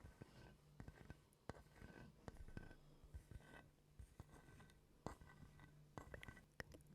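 Quiet close-microphone ASMR trigger sounds: soft, irregular clicks with light scratching or rubbing in between.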